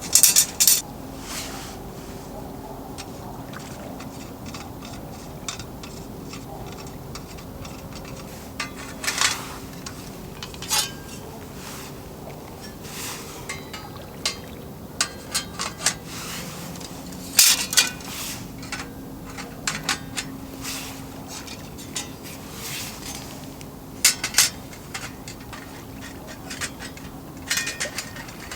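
Dishes, pots and cutlery clinking and knocking now and then, with a faint steady hum underneath.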